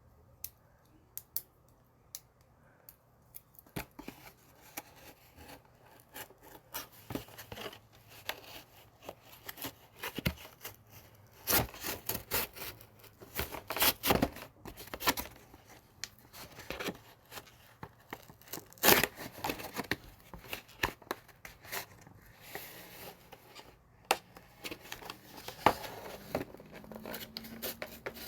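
Packaging of a Pokémon card product being cut and torn open: irregular crackling rips and clicks of plastic wrap and cardboard, with the sharpest rips about halfway through.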